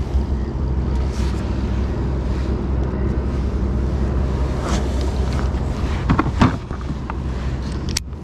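Wind buffeting the microphone over open water, a steady low rumble, with a few short knocks about six seconds in.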